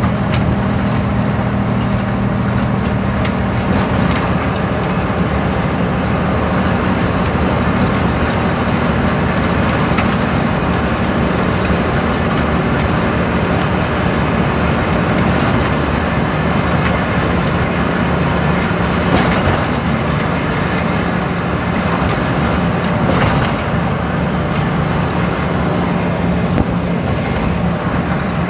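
A road vehicle driving at a steady speed, heard from on board: a low engine hum over a constant rush of tyre and wind noise.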